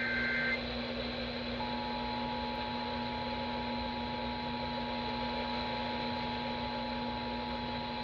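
Emergency Alert System signal received over the radio. The last half-second of a warbling SAME digital data burst ends just after the start. About a second and a half in, the EAS two-tone attention signal begins, a steady pair of tones that holds to the end. Radio hiss and a steady low hum sound underneath.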